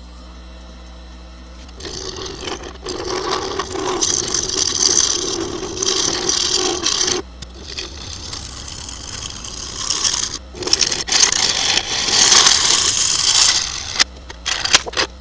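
Wood lathe spinning a maple burl blank cast in coloured epoxy, with a turning tool cutting through the epoxy skin into the wood. A steady motor hum gives way about two seconds in to a loud, rough scraping cut, broken by two brief pauses, with a few short cuts near the end.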